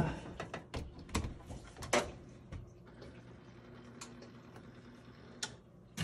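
Scattered clicks and light knocks from the KitchenAid front-loading washer's controls being handled as a cycle is set for a test run. The clicks come thick in the first two seconds, then a few more spaced a second or so apart.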